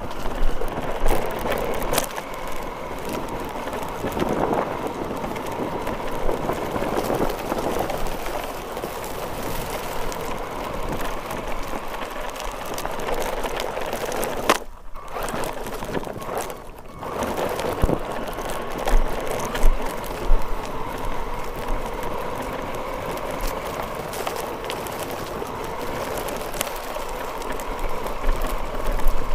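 RC car driving over grass and dirt: a steady motor whine over rattling and crackling from the wheels and chassis on rough ground. The sound dips briefly about halfway.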